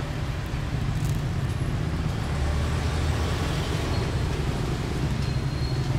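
Street traffic: a motor vehicle's engine running nearby, a steady low rumble that swells a little partway through.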